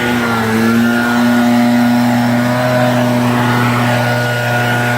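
Small engine of landscaping power equipment running with a steady drone, its pitch shifting slightly now and then.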